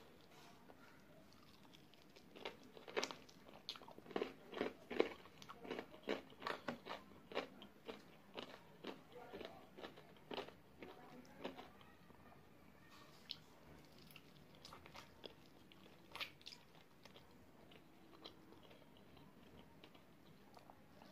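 A person chewing fried chicken wings in a spicy sauce coating, in a quick run of crunching bites that thins out to a few scattered chews later on.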